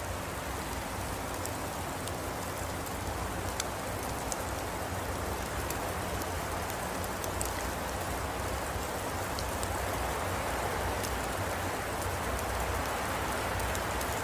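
Steady hiss of falling precipitation, with scattered faint ticks of drops landing.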